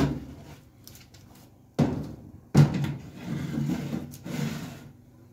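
Oven door and metal baking tray: sharp knocks and clatter as a tray of sliced tomatoes is slid onto the oven rack and the door is shut. There is one knock right at the start, another a little under two seconds in, and the loudest a little later, followed by a couple of seconds of rattling and scraping.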